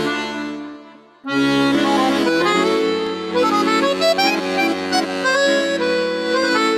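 French-style swing music led by an accordion. The music fades into a short break about a second in, then comes back in with held accordion chords.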